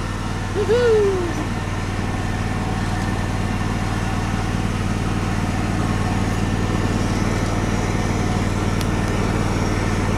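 John Deere riding lawn mower's engine running steadily as the mower drives across the lawn. About a second in, a short voice call rises and falls over it.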